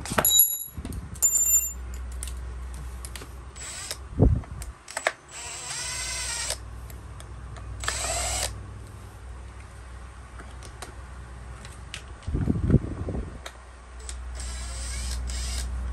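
Screwdriver working the screws out of a Komatsu Zenoah brush cutter's plastic engine cover: scattered clicks and knocks, short scraping whirs of a second or so, a few more through the middle, and a couple of dull thumps as the cover is handled.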